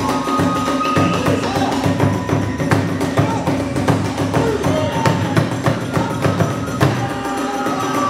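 Kagura hayashi ensemble playing: a large drum beating a fast, steady rhythm, with hand cymbals clashing and a transverse bamboo flute playing held notes above.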